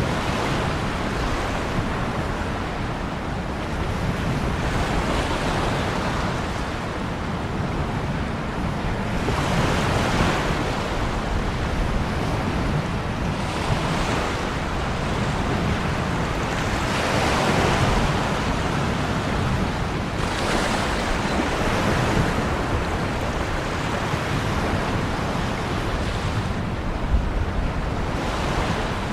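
Ocean waves breaking and washing in surf, swelling and ebbing every few seconds over a steady low rumble of the sea.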